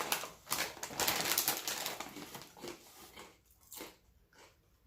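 Potato chips being crunched and chewed close to the microphone, a dense run of crisp crackling crunches that thins out and goes quiet after about three and a half seconds.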